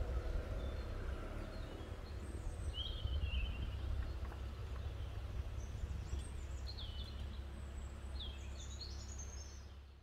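SUV engine pulling away with a small trailer on a dirt track, fading over the first few seconds over a steady low rumble. Birds chirp several times from about three seconds in.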